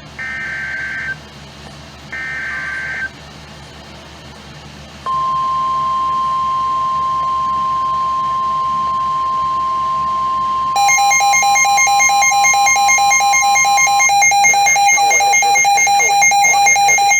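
Emergency Alert System broadcast from NOAA Weather Radio: two short raspy SAME header data bursts, then a steady single-pitch warning alarm tone (1050 Hz) starting about five seconds in. About eleven seconds in, a pulsing electronic beeping alarm starts over the tone and keeps on after the steady tone stops a few seconds later.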